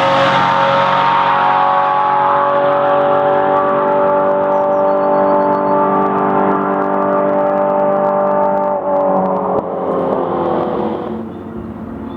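Historic racing car engine running at high, steady revs, then dropping in pitch about nine seconds in and getting quieter near the end.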